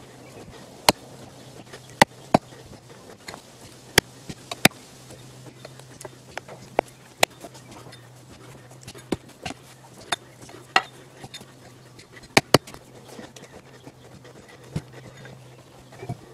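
Irregular sharp clicks and light knocks, about fifteen of them, unevenly spaced and sometimes in quick pairs, over a faint steady low hum.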